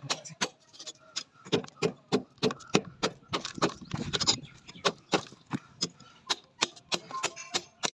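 Sharp knocks in a quick, fairly steady rhythm of about three a second.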